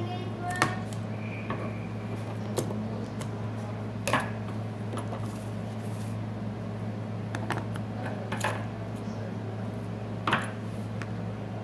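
Handling noise from laying double-sided adhesive tape around an iPad 2 frame: scattered light clicks and taps, a few of them sharper, over a steady low electrical hum.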